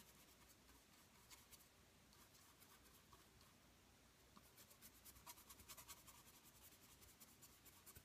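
Faint scratchy scrubbing of a stiff hog-hair brush on canvas as oil paint is worked in, in quick repeated strokes that come thickest a little past the middle.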